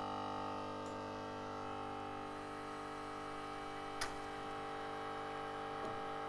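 A steady machine hum made of several constant tones, with one sharp click about four seconds in.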